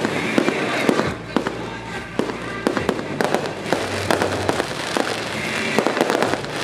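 Firecrackers and fireworks going off in quick, irregular succession: many sharp bangs and crackles over a continuous noisy bed.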